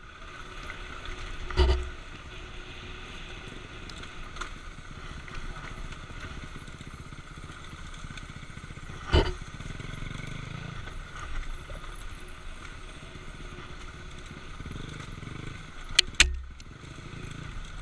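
BMW F650GS motorcycle riding a rocky dirt trail, its engine running steadily under rattle and rumble from the rough ground. Sharp knocks stand out about two seconds in, near the middle, and twice close together near the end.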